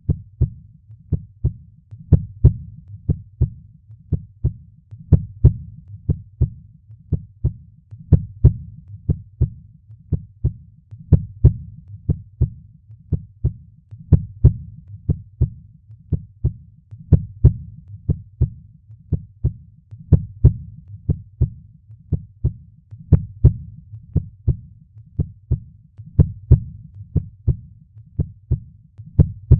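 Human heartbeat: paired lub-dub heart sounds repeating steadily at about one beat a second, with a low rumble between beats.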